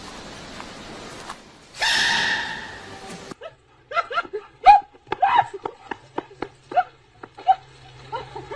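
A loud rushing noise lasting about a second and a half, cut off abruptly, then a dog giving a quick run of short yips and whines that rise and fall, with one sharp click among them.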